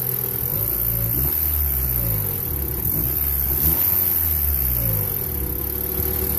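1994 Honda Accord's 2.2-litre VTEC four-cylinder engine revved and let fall back about three times, with a knock that the owner takes for bad rod bearings slapping on the crankshaft.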